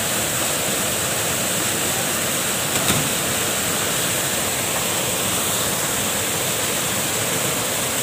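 A small waterfall pouring steadily into a pool, a constant rushing of water. A brief sharp knock or splash stands out over it about three seconds in.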